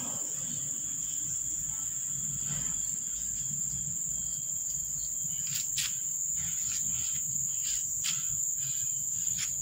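Crickets trilling in one steady, high-pitched tone, with a few faint clicks about six and eight seconds in.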